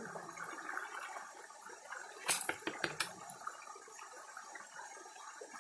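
Shallow creek water running and splashing over rocks as a prospecting sieve is worked in it. A quick run of sharp clicks from stones and gravel knocking together comes a little over two seconds in.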